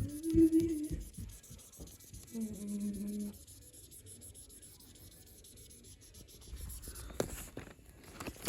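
Felt-tip marker rubbing back and forth on colouring-book paper, filling in an area with quiet scratchy strokes, with two short low hums in the first few seconds and a couple of light clicks near the end.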